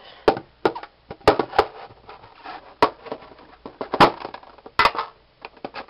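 Metal collector's tin being handled and opened: a string of sharp clicks and knocks, seven or eight in all and unevenly spaced, from the tin's lid and body being knocked and pulled apart. The loudest comes about four seconds in.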